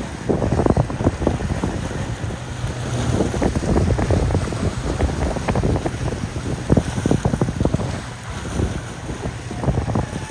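Wind buffeting the microphone in gusts over the low drone of motorboat engines and the wash of their wakes.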